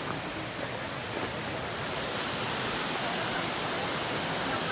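Steady rushing of a waterfall, getting slightly louder about two seconds in.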